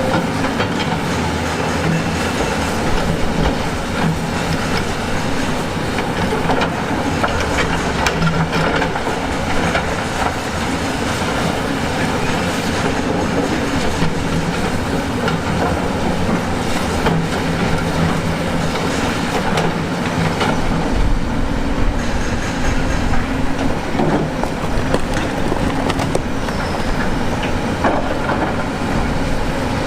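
Heavy earthmoving machine working on rock: its diesel engine runs steadily under load, with constant metallic clanking and sharp knocks of steel and stone throughout.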